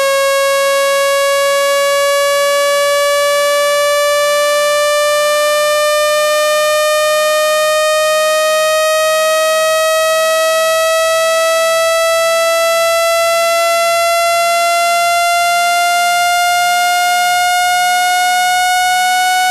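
Synthesized speaker-cleaning tone: a loud, steady, buzzy electronic tone whose pitch rises slowly and evenly. It is a sweep meant to vibrate the speaker cone and shake dust out of the grille.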